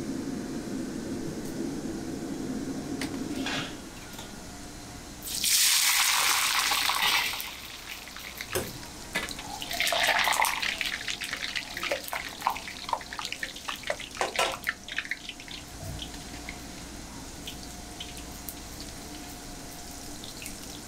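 Deep frying in a wok of hot oil: a loud burst of sizzling about five seconds in as food goes into the oil, a second burst around ten seconds, then busy crackling and popping that thins out to a sparse, quieter crackle. A steady low rumble runs for the first few seconds.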